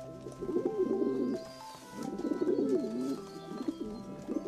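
Eurasian collared dove cooing in three phrases of about a second each, over steady background music.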